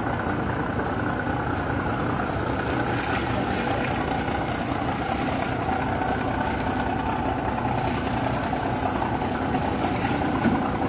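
Fishing trawler's engine running steadily while the powered net drum winds the trawl net aboard.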